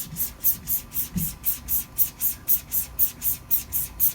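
Straight razor being stropped on a linen strop: quick, even swishes about four a second as the blade is drawn back and forth, a light final stropping after the edge was finished on a half-micron CBN plate.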